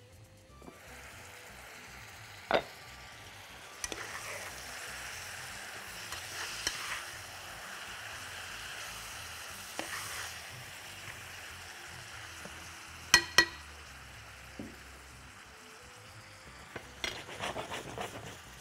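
Chunks of camel meat with carrots sizzling and frying in a pot once the lid is lifted about a second in, while being stirred. A few sharp clinks of a utensil or lid against the pot, the loudest a quick double clink about two-thirds through.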